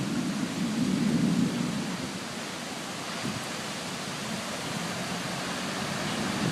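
Rain falling steadily in a thunderstorm, with a low rumble that swells over the first two seconds and then eases.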